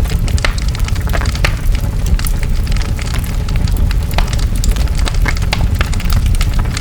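Large fire burning: a steady low rumble with frequent sharp crackles and pops.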